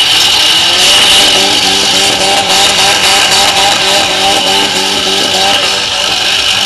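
A car engine revving hard in quick repeated surges, about two a second, as the car spins its wheels through a smoky burnout on dirt.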